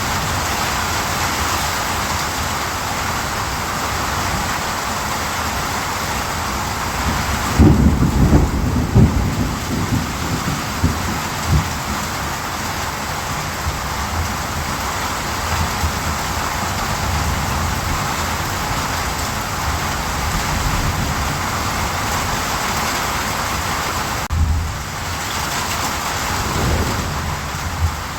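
Steady heavy rainfall, with a loud low rumble of thunder about eight seconds in that dies away over a couple of seconds, and a fainter rumble near the end.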